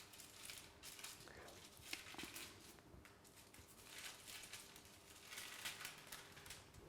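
Near silence with faint rustling and light taps of kitchen handling.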